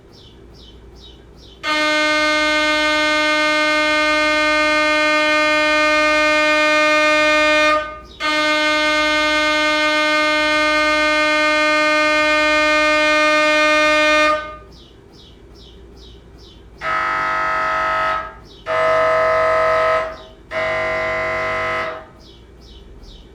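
MRI scanner's gradient coils during a scan: a loud, steady buzzing tone held for about six seconds, a brief break, then about six seconds more. After a stretch of faint ticking at about three ticks a second come three shorter, deeper buzzes of about a second each.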